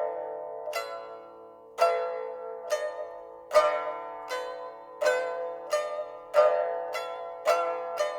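Background music on a plucked string instrument: slow single notes that ring and fade, coming a little faster toward the end.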